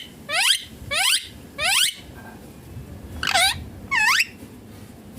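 Indian ringneck parakeet screeching: five short, sharp calls that sweep up in pitch, three in quick succession about half a second apart, then after a pause two more.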